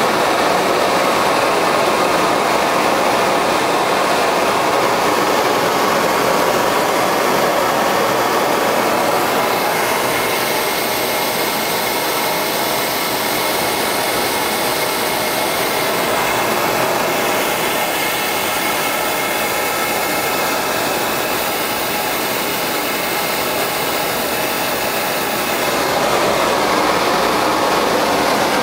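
Homemade naturally aspirated gas burner, made of 1-inch pipe with a flare and a 0.047-inch gas nozzle, burning steadily with a loud, even rushing noise of gas and flame. It gets a little quieter through the middle and comes back up near the end.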